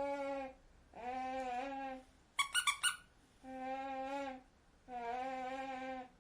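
Squeaky toy squeezed over and over: four long squeaks of about a second each, with a quick run of four short, higher squeaks in the middle.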